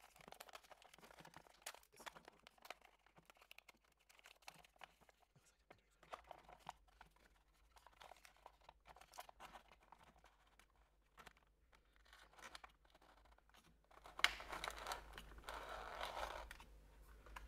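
Faint rustling and small clicks of 120 roll film's paper backing and the Agfa Clack's plastic body being handled while the film is threaded onto the take-up spool. Near the end the paper rustling and scraping grows louder for a few seconds.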